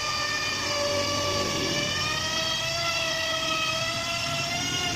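Handheld electric router running under load, its bit cutting a decorative groove into a wooden door panel. It gives a steady, loud whine whose pitch dips slightly and then creeps upward.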